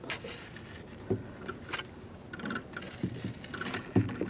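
Quiet, irregular knocks and ticks aboard a small aluminium motorboat as it is pushed off with a boat hook while its electric anchor winch pays out the anchor rope; the sharpest knock comes about four seconds in.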